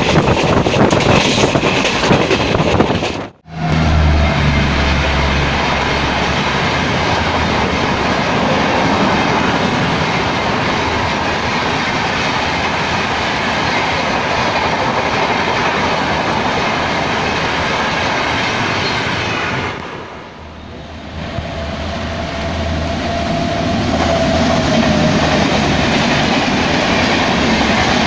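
Shatabdi Express passenger coaches passing at speed: a steady rushing of wheels on rail with clickety-clack over the joints. The sound breaks off sharply about three seconds in and dips again about twenty seconds in, where the shots change.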